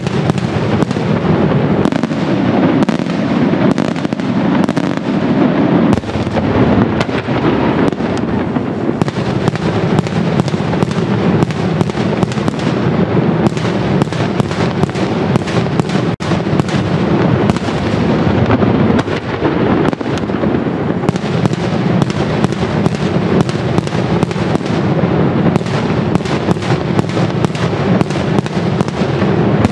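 Daytime aerial firework salutes bursting in a rapid, continuous barrage: sharp bangs several a second, overlapping with no let-up.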